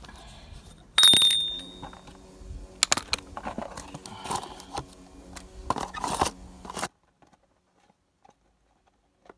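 Metal tools clinking and rattling against metal parts under a car during an oil change, with one sharp, ringing clink about a second in and scattered clicks after it. The sound cuts to near silence about seven seconds in.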